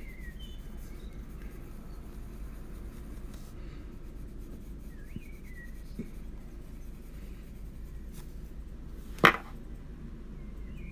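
Polychromos coloured pencil scratching and rubbing on paper as it shades, with one sharp knock about nine seconds in.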